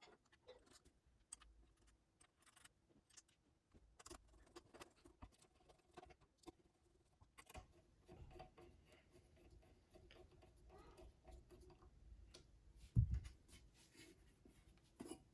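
Faint, scattered clicks and light rattles of small hardware being handled, with one dull thump about 13 seconds in.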